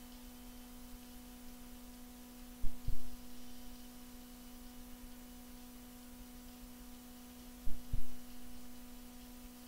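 A steady electrical hum, broken twice by a dull double thump, the two pairs about five seconds apart.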